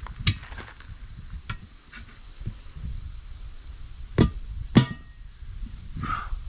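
Pry bar and breaker bar knocking and clanking against a wheel rim as a tire bead is levered onto the rim by hand. A few scattered knocks, the two loudest about four and five seconds in, the second ringing briefly.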